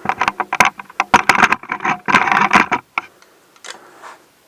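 Rapid clicking of a ratchet wrench working the brake caliper bolts, for about three seconds before it stops.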